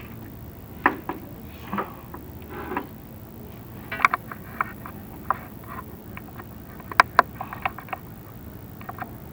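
Chimney inspection camera being lowered down a clay-tile flue, knocking and scraping against the tiles: irregular sharp clicks and taps over a steady low hum, with two louder knocks in quick succession about seven seconds in.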